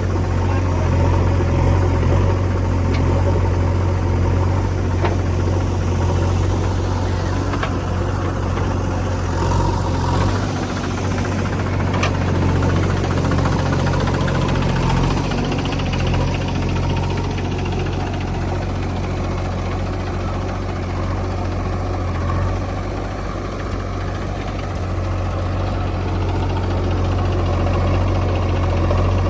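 Heavy diesel engine of a backhoe loader at work, running steadily with a deep low hum. There is one sharp knock about twelve seconds in.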